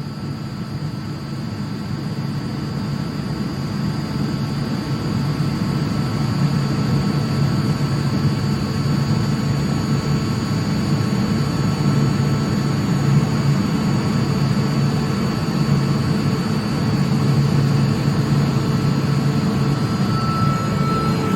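An 11 kW direct-drive Atlas Copco screw air compressor running loaded with a steady hum and a thin whine, recharging its air receiver from about 5.3 to 7.3 bar. It grows gradually louder.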